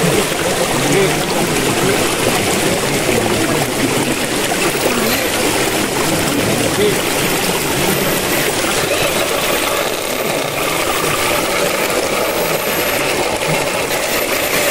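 Steady rush of flowing water, with faint indistinct voices underneath.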